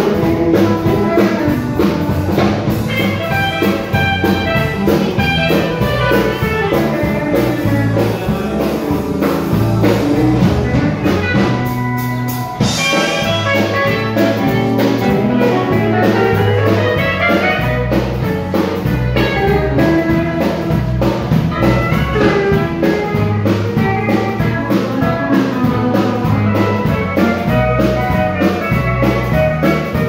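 Live country band playing a fast fiddle tune, with fiddles, guitar and pedal steel guitar over a steady beat. The band drops out for a brief break about twelve seconds in, then comes back in.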